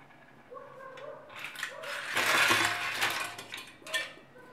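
Clams in their shells being tipped and scraped from a metal pan into a pot of simmering sauce, then stirred. The shells clatter and rattle against the metal, loudest about halfway through.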